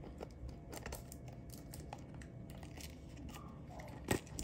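Faint crinkling and small clicks of a model car's packaging being handled and opened, with a sharper click about four seconds in.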